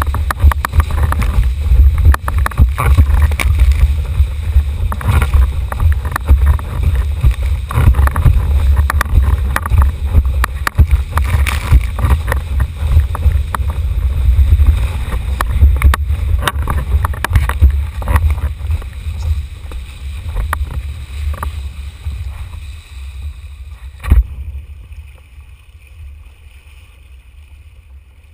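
Wind buffeting a boom-mounted GoPro's microphone, with water rushing and spray and chop knocking against the camera as a formula windsurf board sails fast. The rumble thins and quietens over the last several seconds, with one sharp knock about 24 seconds in.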